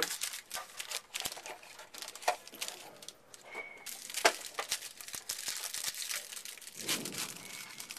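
Plastic packaging of a sealed trading-card box crinkling and tearing as it is unwrapped by hand: irregular rustling and small clicks, with one sharper click about four seconds in.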